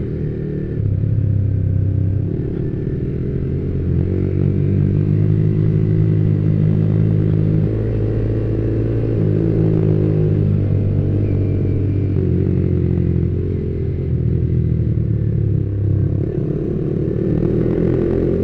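Yamaha Vixion R's single-cylinder 155 cc engine running under way at moderate speed, its note rising and falling several times as the throttle is worked.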